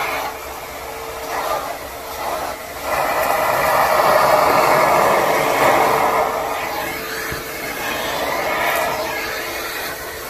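ProTeam Super Coach backpack vacuum running with a steady motor whine, its suction hiss swelling and easing as the nozzle works over the floor picking up teddy-bear stuffing and bean filling.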